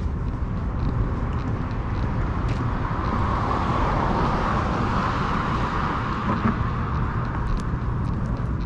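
Street traffic: a car passes, its tyre and engine noise swelling and fading over a few seconds in the middle, over a steady low rumble of city traffic.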